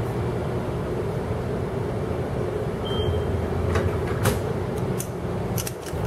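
Metro faregate's card reader gives one short, high electronic beep about halfway through, over a steady low city hum. A few sharp footsteps on concrete follow as the gate is passed.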